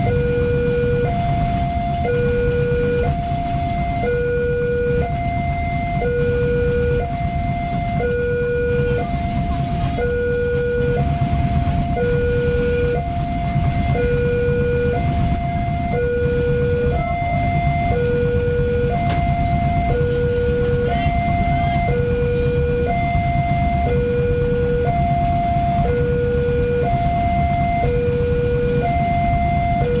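Railway level-crossing warning alarm from the crossing's horn loudspeaker: an electronic two-tone signal alternating low and high, about one tone a second, warning that a train is coming and the barriers are down. Under it runs the steady low rumble of waiting motorcycles' engines idling.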